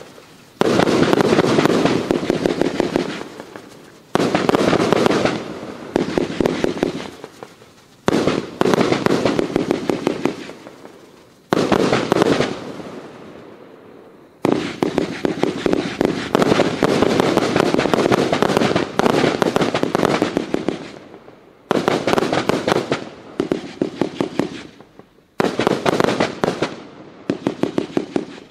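A 30 mm fireworks cake firing, 180 shots in all: volleys of sharp bangs every few seconds, each breaking into dense rapid crackling that fades away before the next one.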